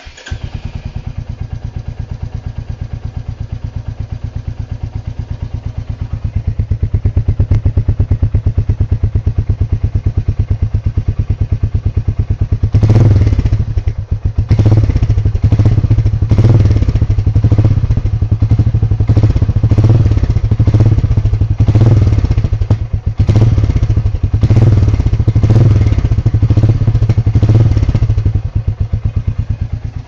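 Royal Enfield Meteor 350's 349cc single-cylinder air-oil-cooled engine starting on the button and settling into a steady, even thump at idle through its stock exhaust. About halfway through, a long series of quick throttle blips begins, each a short rising rev, one or two a second. Near the end it drops back to idle.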